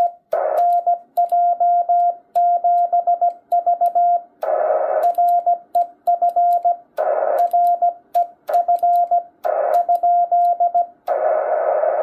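Morse code being sent on a Yaesu all-mode transceiver on 20 meters. The radio's steady sidetone is keyed in dits and dahs, plausibly a request to K0ET for his park reference. Short bursts of receiver hiss break in between groups as the rig drops back to receive, and near the end the hiss alone remains.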